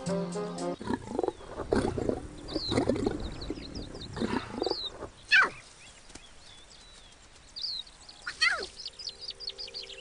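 Lion cub calling: a run of short rough calls in the first half, then two loud falling cries about five and eight and a half seconds in, the first the louder. Small birds chirp in the background.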